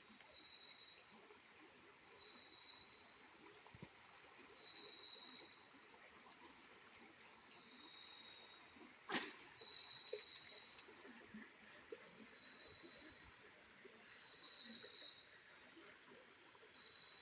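Steady high-pitched chorus of insects (crickets or cicadas), with a lower trilling call repeating about every two seconds. A single sharp click comes about halfway through.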